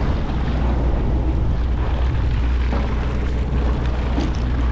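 Steady low rumble of the fishing boat's engine running at a constant pitch, with wind and sea noise over it.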